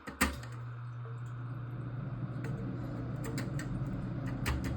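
A sharp click, then water rushing steadily in the toilet with a low hum, growing slowly louder, and a few light clicks near the end.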